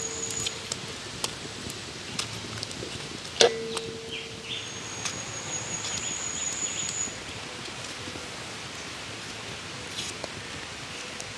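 Outdoor ambience: a steady hiss with a high thin trill twice, and a single metallic clink that rings briefly about three and a half seconds in.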